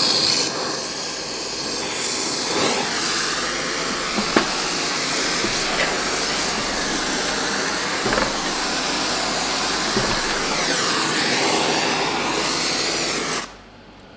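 Gas torch flame hissing steadily while heating a steel rivet to glowing heat, with a few faint metallic knocks. The hiss cuts off suddenly near the end.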